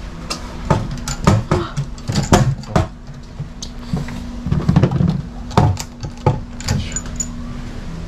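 Wooden shoe locker in use as shoes are put away: a run of sharp knocks and clicks from its door and shoes striking the wood, with a locker key jangling.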